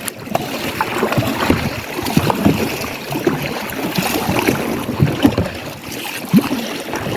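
Water sloshing, gurgling and lapping against the hull of a small paddled boat, with many irregular little splashes.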